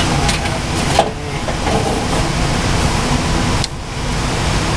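Steady running noise of a water source heat pump in a ceiling space, with a few light clicks and a sharp knock about a second in.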